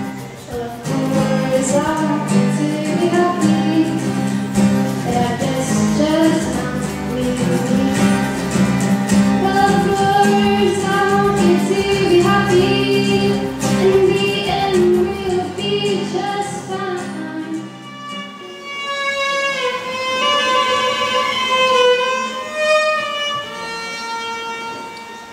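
Acoustic guitar accompanying a woman singing, then about fifteen seconds in a solo violin melody takes over, with the guitar's low strumming dropping away.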